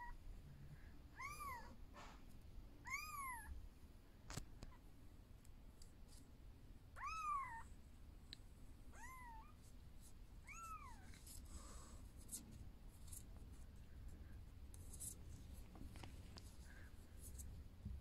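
Very young kitten mewing: about five short, high-pitched mews, each rising and falling in pitch, spread over the first eleven seconds. After that there are only faint clicks and scuffs.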